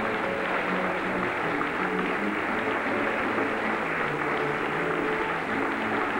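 Audience applauding over music that plays steady held notes.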